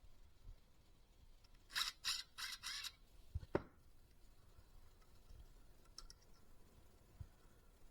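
A screw being worked out of a computer monitor's plastic housing: four short rasping turns about two seconds in, then one sharp click.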